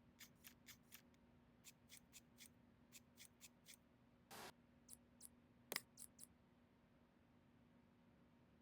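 Faint run of small sharp clicks, about four a second for roughly four seconds, then a short scrape and a few scattered clicks, from PC parts and tools being handled during assembly. A steady low hum lies underneath.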